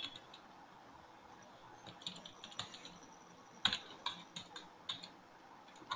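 Faint computer keyboard typing: a couple of isolated keystrokes, then a quicker run of several keys in the second half.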